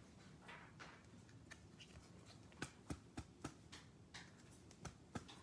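Faint handling of a trading card and a rigid clear-plastic top loader in gloved hands: soft rustles and a scatter of light plastic clicks, most of them in the second half.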